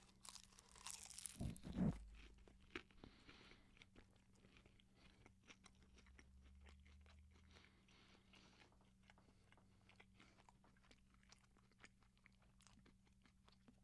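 A bite into spanakopita, its flaky phyllo pastry crunching in the first two seconds, followed by faint chewing with soft scattered mouth clicks.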